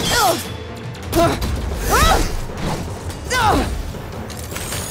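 Cartoon robot battle sound effects over action music: four swooping pitched zaps about a second apart, each with a heavy low hit.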